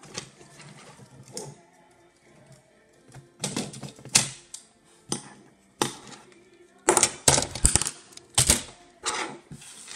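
Plastic and metal parts of a DVD drive's tray and laser sled clicking and clattering as they are pried apart by hand, in bunches of quick sharp clicks, loudest about three and a half seconds in and again from about seven to nine and a half seconds. Faint background music runs underneath.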